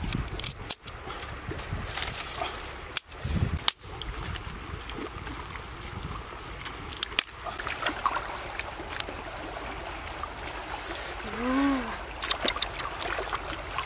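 Shallow river trickling and splashing over stones, with scattered knocks and clatters of stones and things being handled at the water's edge. A short rising-and-falling tone comes near the end.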